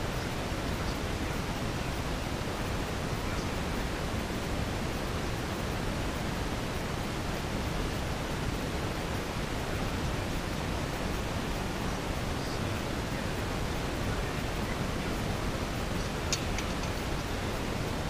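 Steady rushing noise over the GoPro's sound track, even and unchanging, burying the ceremony; a faint click about sixteen seconds in.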